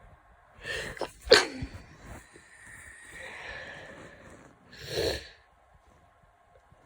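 A person with a head cold sneezing: a quick noisy in-breath, then a sharp, loud sneeze about a second in, followed by breathy sounds and a second, shorter burst near the end.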